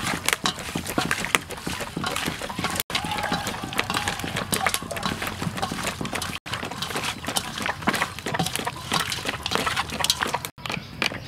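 Raw frog pieces squelching and slapping wetly against each other and a stainless steel bowl as they are kneaded by hand with seasoning: a rapid, uneven run of small wet smacks and clicks.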